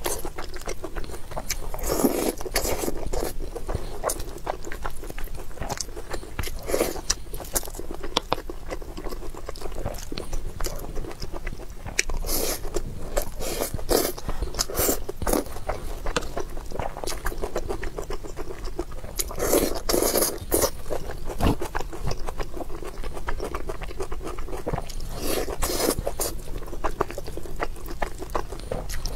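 Close-miked eating sounds: soft, wet chewing of rice and saucy scrambled-egg stir-fry, with a wooden spoon scraping and stirring against the bowl. Several louder spells come every few seconds.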